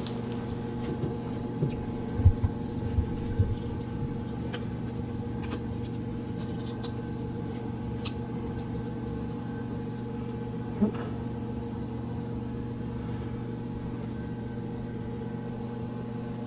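Light clicks and knocks from handling and fitting a small plastic action-figure helmet, clustered in the first few seconds with one more about eleven seconds in, over a steady background hum with a few fixed tones.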